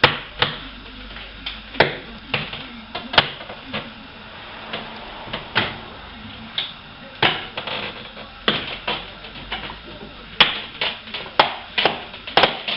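Irregular sharp clicks and knocks, a couple of dozen of them, from hand work on a car door's inner panel: prying and handling panel parts and fasteners.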